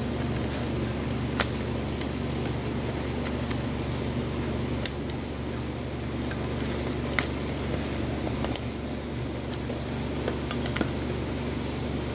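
A handful of light clicks and taps, scattered irregularly, from hands pressing and fitting the centre of a large loudspeaker cone around its dust cap, over a steady low hum.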